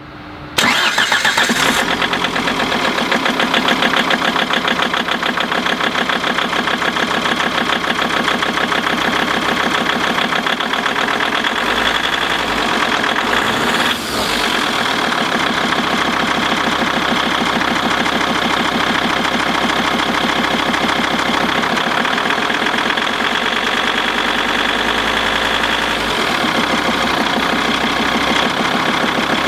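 Volvo Penta D3 190 five-cylinder marine turbodiesel starting about half a second in, catching at once, then idling steadily.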